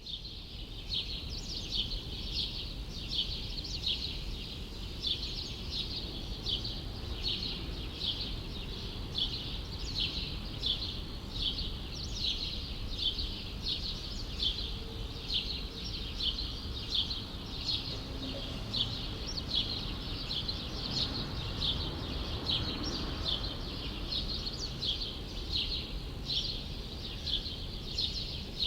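A bird chirping over and over at an even pace, about two short high chirps a second, over a steady low rumble of city traffic.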